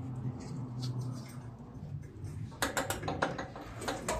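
Light clicking and scraping of hands handling a riding mower's drive belt and pulleys, with a quick cluster of clicks a little past halfway and another click near the end, over a steady low hum.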